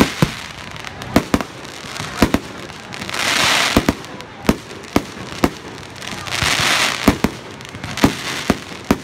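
Aerial fireworks display: a rapid string of sharp bangs as shells burst overhead, with two stretches of hissing crackle between them.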